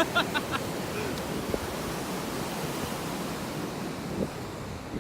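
Ocean surf washing onto a beach: a steady rushing wash of breaking waves that swells a little and eases off near the end. A few brief sharp sounds come right at the start.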